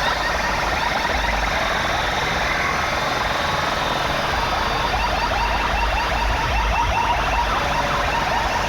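Sound system at a DJ sound competition playing an electronic effect: quick, repeated pitch sweeps over a steady deep bass, with no break.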